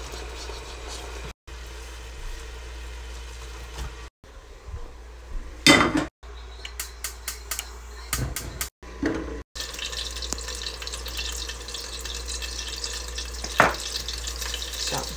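Oil sizzling in a hot frying pan, a dense steady hiss through the second half. Before it come a few sharp knocks and clicks, the loudest about six seconds in.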